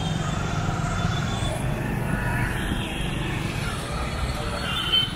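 A car driving through city traffic: a steady low rumble of engine and road noise.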